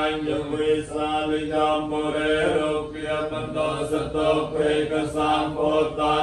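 Theravada Buddhist paritta chanting in Pali: male monastic voices reciting blessing verses on a steady, near-monotone pitch.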